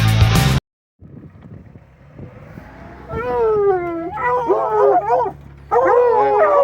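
Rock intro music cuts off abruptly just after the start; from about three seconds in, several hunting dogs howl together in long calls that fall in pitch, with a short break before they start again.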